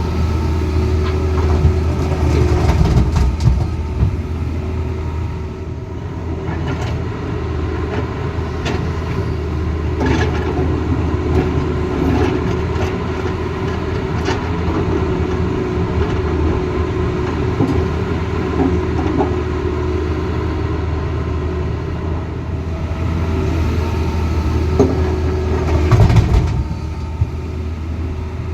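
Tata Hitachi Zaxis excavator's diesel engine running steadily under load, with scattered short knocks and clanks; the engine swells louder a few seconds in and again near the end.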